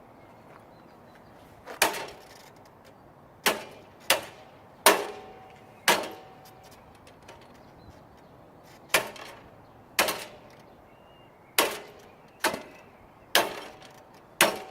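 Hammer striking a steel bicycle U-lock, about eleven sharp metallic blows at an uneven pace, each with a short ring. The lock has been frozen through the keyhole with canned air so that it will crack under the blows.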